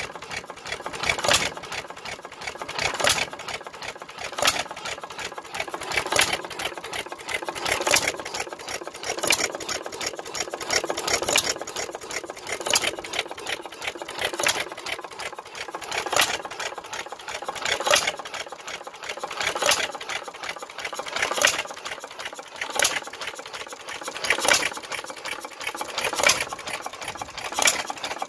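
1914 International Harvester Famous 1 hp single-cylinder hit-and-miss engine running light. It fires with a sharp pop about every 1.7 seconds, with a quick, even ticking in between.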